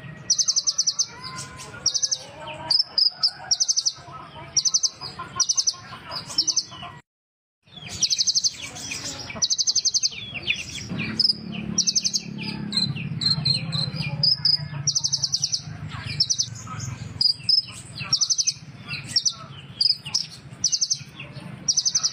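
Kolibri ninja sunbird singing: short, high, rapidly trilled notes repeated about once a second, with softer twittering chirps in between. There is a brief silent break about seven seconds in.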